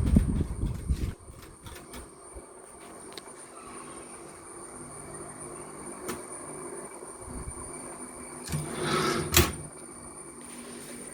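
Adler manual typewriter being worked: heavy knocks and clacks in the first second, a few single sharp clicks, then a brief sliding rush that ends in a loud sharp clack about nine seconds in.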